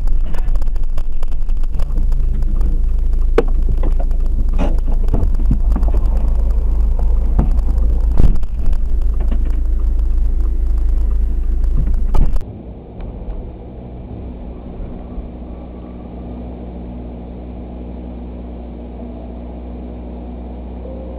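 Loud low road and wind rumble inside a car moving at highway speed, with several sharp knocks. About twelve seconds in, it cuts off suddenly to a much quieter steady hum with a few held tones.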